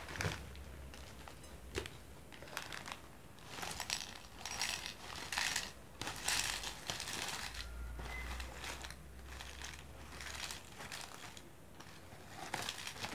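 Thin plastic snack packet crinkling in the hands as puffed kerupuk crackers are shaken out of it into a glass bowl, in a run of short, irregular rustles.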